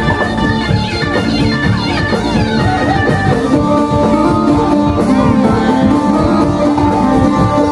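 Live band playing loud Arabic-style party music, with guitar, a steady drum beat and a male singer's voice over it.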